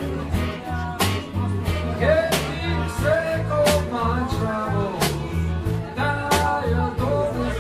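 Live rock band playing: a man sings over electric guitars and a steady low bass line, with regular percussive hits keeping the beat.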